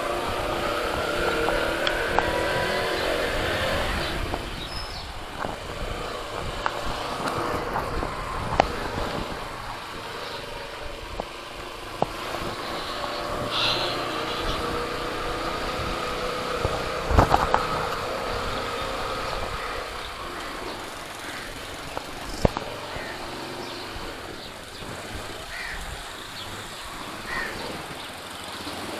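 Yamaha YBR 125 motorcycle's single-cylinder four-stroke engine running at low street speed, its pitch rising as it accelerates in the first couple of seconds and again about halfway through. A few sharp clicks are heard along the way.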